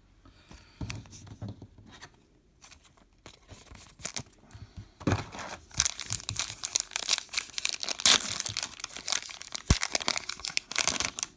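Baseball card pack wrapper being torn open and crinkled. There are only faint rustles and clicks at first, then a dense crackling of tearing and crumpling from about five seconds in.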